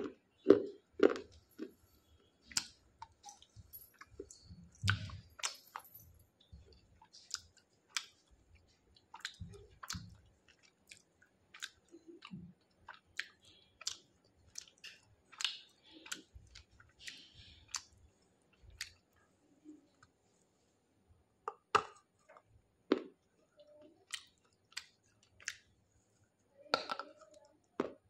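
Close-up chewing and crunching of very hard, oven-baked and dried clay pieces: irregular sharp crunches and clicks, a few a second, with a short lull about two-thirds of the way in.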